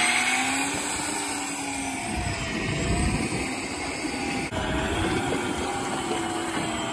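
Banax Kaigen 1000 electric reel winding a hooked fish up from deep water, its motor whine wavering in pitch as the load changes, over a steady hiss of wind and water.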